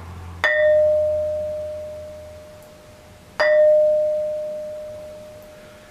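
A long, tapering quartzite ringing stone, held lightly and struck twice, about three seconds apart. Each strike rings like a bell with one clear, steady tone that fades slowly over a couple of seconds.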